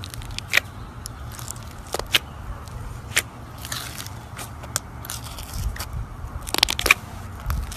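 Slime being squeezed and pressed by hand, giving irregular sharp clicks and pops, with a quick cluster of them near the end.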